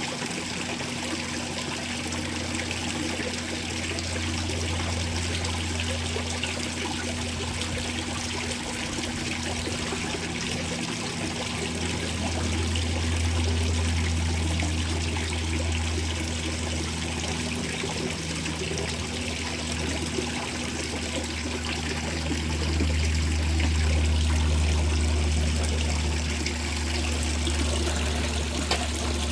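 Light rain with water trickling and running, under a low rumble of wind on the microphone that swells and fades.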